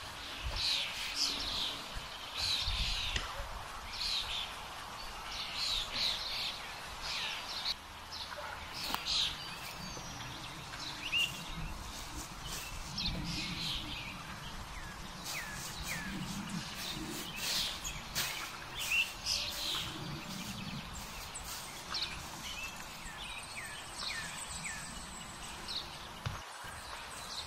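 Several songbirds chirping and singing: many short calls and trills throughout, with occasional rustling and steps on dry leaf litter.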